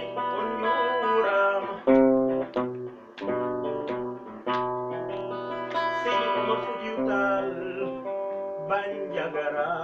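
Acoustic guitar being finger-picked: a melody of single plucked notes over low bass notes, in an instrumental passage between sung verses.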